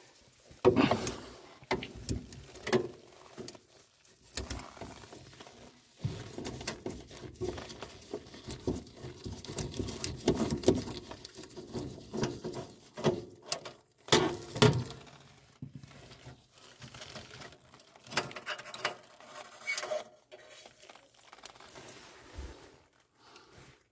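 Irregular metallic clicks, scrapes and small knocks of a quarter-inch nut driver working screws against the sheet-metal inside a gas furnace.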